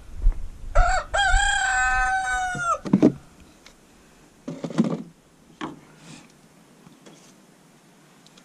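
A rooster crowing once: a single crow of about two seconds, held level and dropping in pitch at the end.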